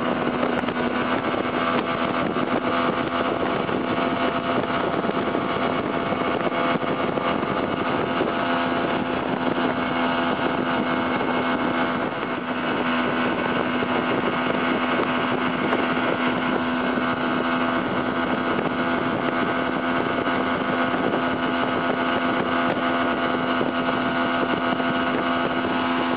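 Motorboat engine running at a steady cruising speed while towing a tube, heard from aboard, a constant hum under the rush of wind and water.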